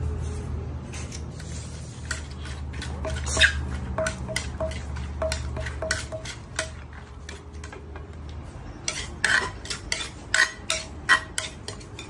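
Papaya salad being pounded and mixed in a large mortar: a wooden pestle and a spoon knocking and clicking against the mortar in a quick, irregular series, with the loudest knocks near the end.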